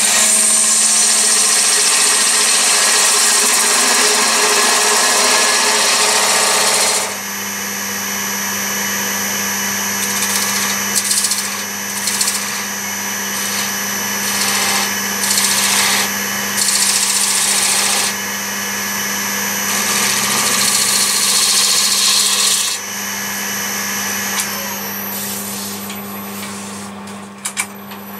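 A wood lathe runs with a steady motor hum while a turning tool cuts into the spinning walnut blank. There is one long continuous cut for the first seven seconds, then a series of shorter cuts. Near the end the cutting stops and only the lathe keeps running.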